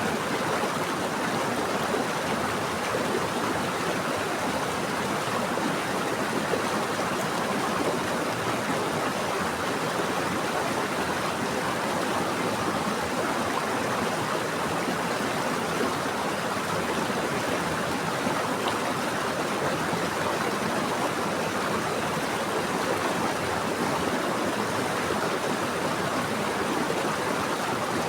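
Steady rushing of flowing water, like a stream or small waterfall, an even unbroken wash of sound.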